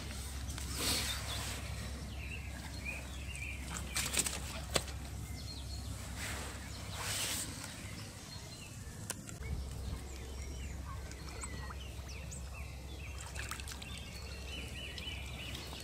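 Small birds chirping and singing on and off, with a few brief rustling noises about 1, 4 and 7 seconds in over a steady low background hum.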